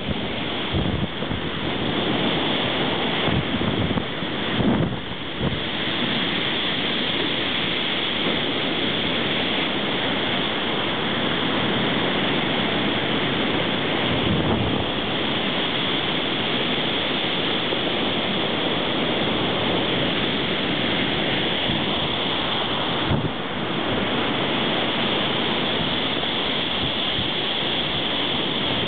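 Waves breaking in a continuous rush of surf. Gusts of wind buffet the microphone during the first several seconds.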